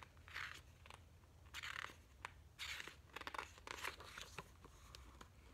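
Paper pages of a hardcover picture book being flipped: a string of short, faint rustles as several pages turn.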